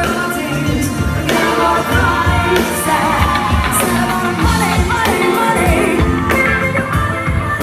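Live band playing a song with a singer, drums and cymbals over bass and keys, loud and steady, caught raw on a phone's microphone.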